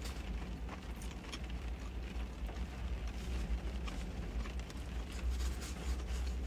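Low steady rumble of a car idling, heard from inside the cabin, with scattered light clicks and taps over it.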